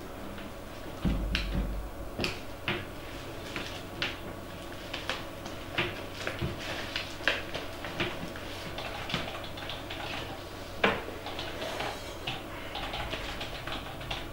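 Irregular light clicks and taps over a steady room hum, with a low thump about a second in and a sharper click later on.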